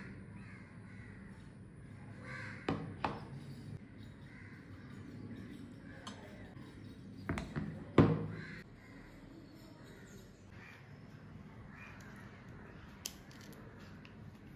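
Containers set down one by one on a table, a few sharp knocks. The loudest, about eight seconds in, is a heavy glass bowl of jelly being put down. Faint bird calls sound in the background throughout.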